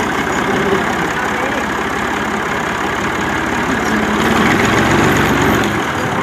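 Old farm tractor's diesel engine idling steadily, growing a little louder about four seconds in and settling back near the end.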